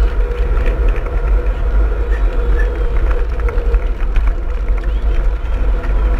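Wind buffeting a bike-mounted action camera's microphone as it rides in a pack of mountain bikes, a loud steady low rumble, with scattered clicks and rattles from the bikes and spectators clapping and calling out along the road.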